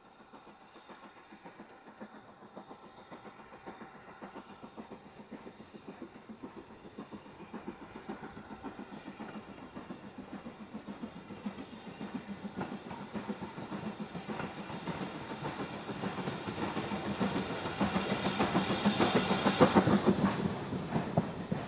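A steam-hauled train approaching with a fast rhythmic beat. It grows steadily louder for most of the time, is loudest as it passes near the end, then drops off suddenly.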